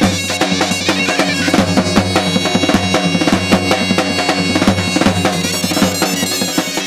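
Several zurnas playing a shrill melody together over a steady drum beat.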